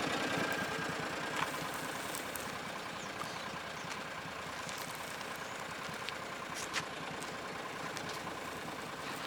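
An engine idling steadily, with a couple of faint clicks.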